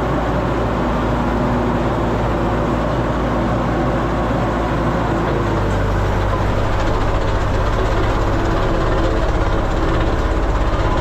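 Diesel engine of a vibratory road roller running steadily under load. About halfway through, the low hum shifts upward and a fast, even pulsing sets in.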